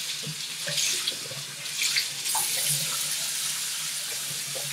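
Bathroom tap running warm water into a sink, with uneven splashing as a washcloth is held under the stream.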